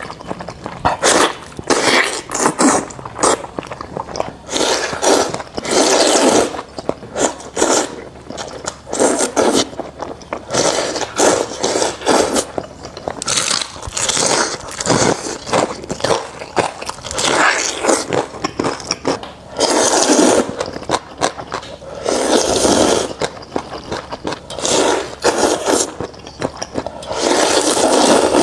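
Close-miked eating: loud bites and chewing, coming in irregular bursts a second or a few seconds apart.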